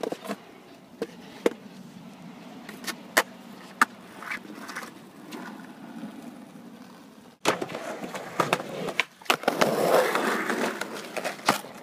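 Skateboard rolling over rough asphalt, its wheels making a steady rumble broken by sharp clacks of the board. After a cut about seven seconds in, the rolling is louder and close, with a denser run of clacks.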